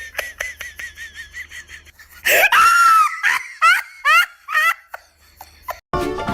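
High-pitched laughter: a run of quick giggles, then louder squealing laughs with sharp rising pitch from about two seconds in.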